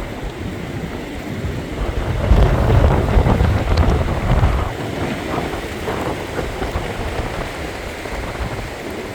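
Gusting wind and rain of an approaching hurricane, the wind buffeting the microphone with a heavy rumble. A stronger gust swells about two seconds in and eases a couple of seconds later.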